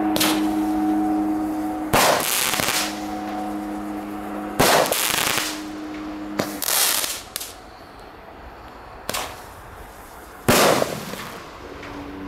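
Homemade 32-shot fireworks cake firing its tubes one at a time: five sharp reports, spaced a second and a half to three seconds apart, each trailing off briefly. A steady hum runs underneath for the first half and then stops.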